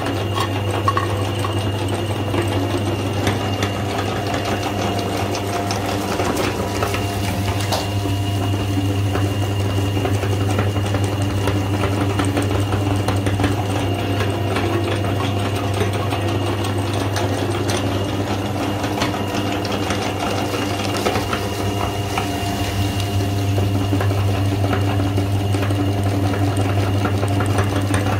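Motor-driven meat grinder running with a steady mechanical hum, with a fine crackle as it crushes chocolate sandwich cookies into crumbs.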